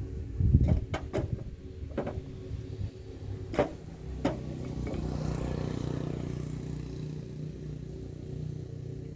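Bricks knocking and clattering as they are loaded into a metal wheelbarrow: a handful of sharp knocks in the first four seconds. Then a motor vehicle goes by with a steady engine rumble that swells about five seconds in and slowly fades.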